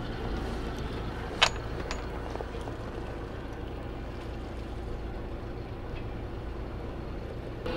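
Sailboat's engine running steadily with a low, even hum. One sharp click about a second and a half in.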